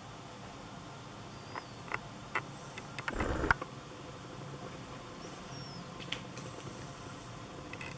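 Small handling noises at a painting table: a few light clicks and taps, and a brief rustling bump about three seconds in, the loudest sound. Faint high squeaky chirps are heard twice in the background.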